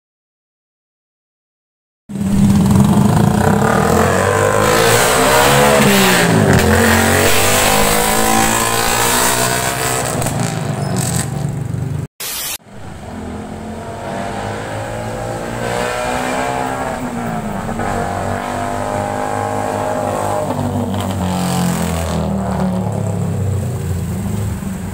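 Motorcycle with a Charama open-pipe exhaust revving and accelerating, its pitch rising and falling, in two stretches with a brief cut about twelve seconds in. Silent for the first two seconds.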